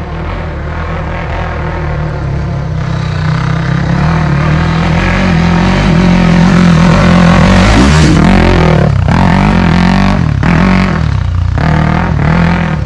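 Dirt bike engine running hard and loud, growing louder over the first half. In the second half it revs with three brief throttle cuts, like gear changes.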